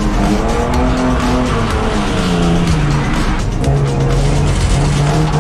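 AU Ford Falcon's engine revving up and down while its tyres skid on a wet track during a drift attempt, heard from inside the cabin, with music underneath.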